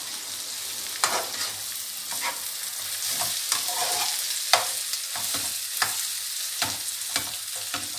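Egg sauce sizzling in a frying pan while a spatula stirs and scrapes it, breaking the scrambled egg into small pieces, with a dozen or so sharp taps and scrapes against the pan over a steady sizzle.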